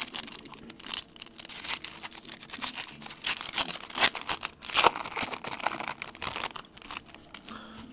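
Foil wrapper of a 2008 Leaf Limited football card pack being torn open and crinkled by hand: dense, irregular crackling that stops just before the end.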